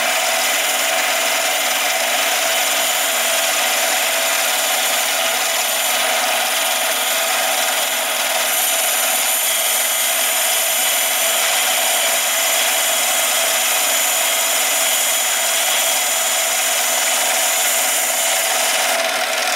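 Mini lathe running while a boring bar cuts dry into an aluminum workpiece, throwing chips: a steady, even machining sound that does not let up.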